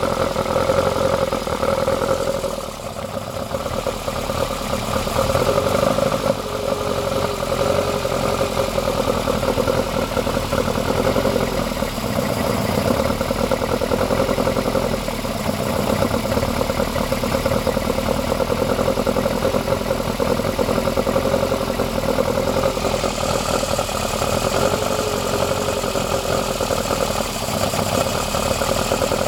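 BMW M10 four-cylinder engine with twin Weber 45 DCOE carburettors and a 292 cam idling steadily, dipping briefly in level about three seconds in.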